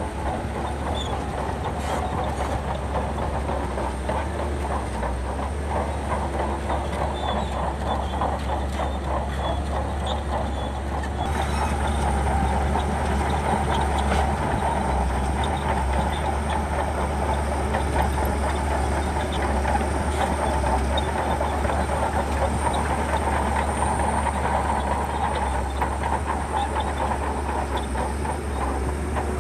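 Shantui crawler bulldozer working: its diesel engine running steadily under a continuous clatter of steel tracks. The sound gets a little louder about a third of the way in.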